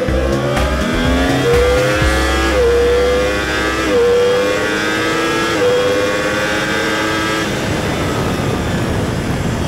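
Yamaha YZF-R1's crossplane inline-four heard onboard under full throttle, rising in pitch and dropping sharply at three quick upshifts. Near the end the engine note fades into heavy wind rush at high speed.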